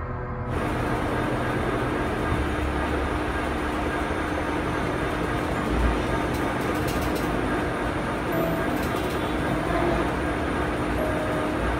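Steady, harsh rumbling noise like a distorted static drone, starting abruptly about half a second in, with a faint held tone beneath it.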